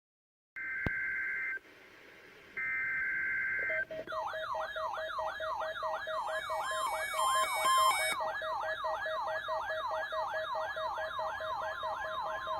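Emergency Alert System weekly test: two one-second bursts of the warbling two-tone digital header, a second apart. Then a warning alarm comes on, a steady tone under a fast up-and-down siren sweep at about three and a half cycles a second, with extra beeps briefly layered on near the middle.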